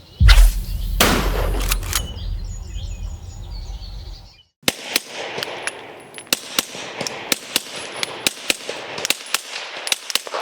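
A very loud boom about a fifth of a second in, trailing into a low rumble for about four seconds. After a sudden cut comes a quick string of sharp shots from a suppressed pistol, about three a second.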